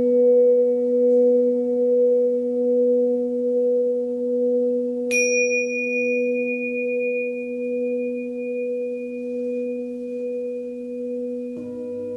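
Hand-forged Tibetan singing bowl ringing on with a steady low hum whose loudness slowly wavers. About five seconds in, a pair of tingsha cymbals is struck once, leaving a clear high tone ringing over it; a new, lower sound enters near the end.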